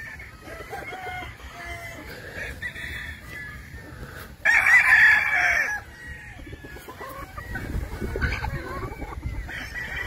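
Chickens clucking in short, scattered calls. One loud rooster crow, the loudest sound, starts about four and a half seconds in and lasts about a second and a half.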